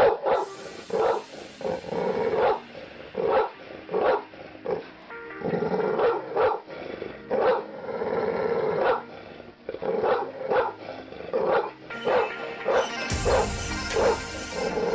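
A dog barking over and over, in short barks about once or twice a second, over background music.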